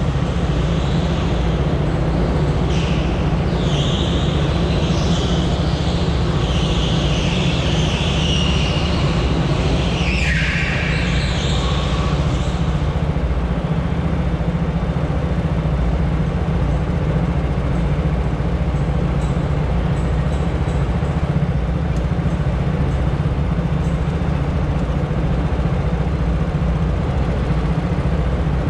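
Racing go-kart under way on an indoor track, its engine giving a steady low drone throughout. For the first dozen seconds higher-pitched noise rides over it, including a sweep falling in pitch about ten seconds in, then fades out.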